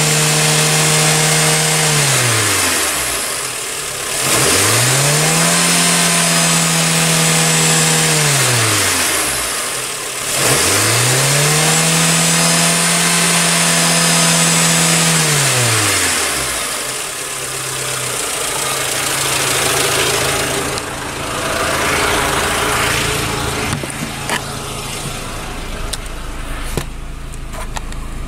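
Renault Sandero's 1.2-litre 16-valve D4F four-cylinder petrol engine held at high revs, dropping back about three seconds in, then revved up and held twice more for about five seconds each before falling back. It then settles to a steady idle.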